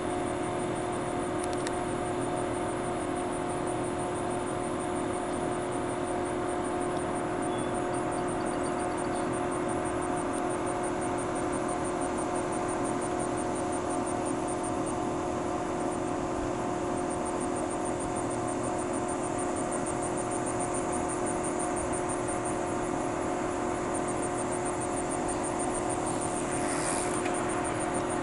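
A steady mechanical hum holding one pitch, with a fast, high, pulsing insect chirp above it.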